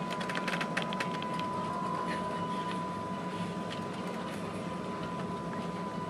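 Ship's bridge ambience under way: a steady low drone of the vessel's machinery with a continuous thin high whine over it, and a run of light clicks and rattles in the first second and a half.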